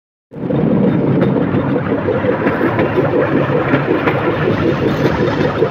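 Bamboo train (norry) running along the rails: its small petrol engine runs steadily, mixed with a fast clatter from the wheels and platform on the track. The sound cuts in suddenly just after the start.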